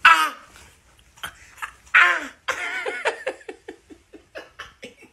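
A man yells out loudly twice in pain, each cry falling in pitch, as the cat on his shoulder hurts him; from about two and a half seconds in, quick bursts of laughter follow, fading toward the end.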